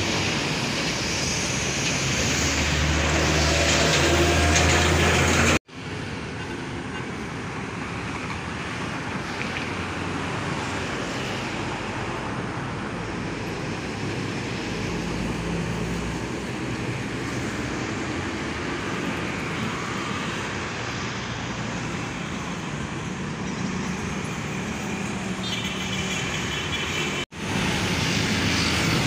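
Roadside traffic: heavy trucks' diesel engines and tyres passing, with motorcycles and cars. The sound builds as a tractor-trailer passes in the first few seconds, then breaks off abruptly twice, about five seconds in and near the end.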